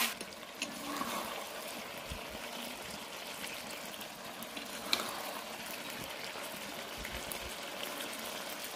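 Thick curry gravy bubbling and sizzling softly in an iron kadai, while a metal spatula stirs it with now and then a scrape or clink against the pan; the sharpest clink comes about five seconds in.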